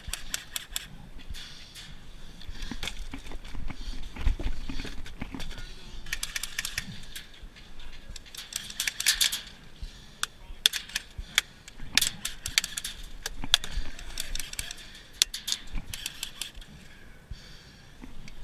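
Airsoft guns firing in scattered single shots and short quick strings of sharp clacks.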